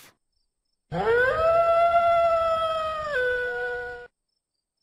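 Wolf howling: one long howl starting about a second in, rising at first, holding steady, then stepping down in pitch near its end.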